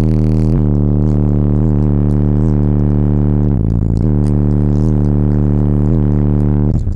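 Loud music dominated by long, deep sustained bass notes with short breaks between them, played through a Sundown Audio X15 15-inch subwoofer inside the car cabin.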